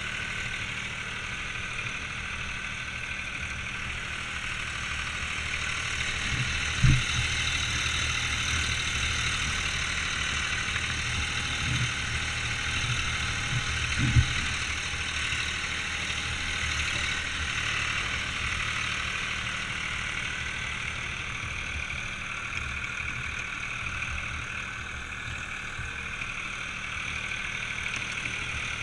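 John Deere farm tractor's engine running steadily while driving across rough ground. Two sharp knocks stand out, about a quarter and about halfway through.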